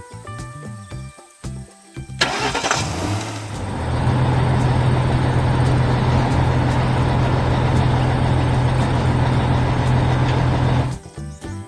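Engine sound effect: an engine starts about two seconds in and runs steadily and loudly for about seven seconds, then cuts off suddenly. Light cartoon music plays before it and after it.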